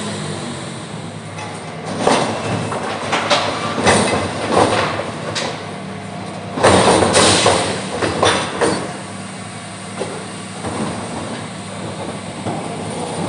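Garbage truck running with a steady low engine hum while a run of metallic clanks and bangs sounds from about two seconds in. The loudest crash is about seven seconds in, then it settles back to the engine with a few lighter knocks.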